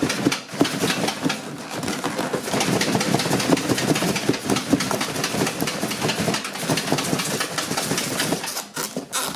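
Cardboard box and styrofoam packing scraping, rubbing and crackling as a computer case stuck tight inside is tugged and worked by hand; a dense run of scrapes and crackles that thins out near the end.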